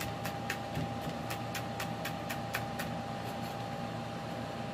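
Kitchen knife slicing green chillies on a wooden cutting board: quick, even taps of the blade on the board, about four a second, fading out about three seconds in. A steady hum runs underneath.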